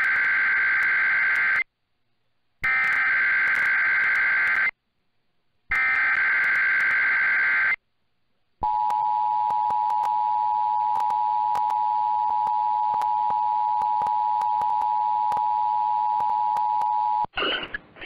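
Emergency Alert System tones received over AM radio. Three SAME data header bursts, each a harsh warbling screech about two seconds long with a second of silence between them, open an EAS test alert. After a short gap comes the steady two-tone attention signal, held for about nine seconds.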